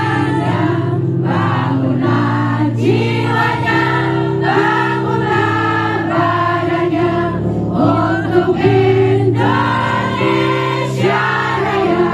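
Live pop music with a female lead singer, joined by many voices of a crowd singing along.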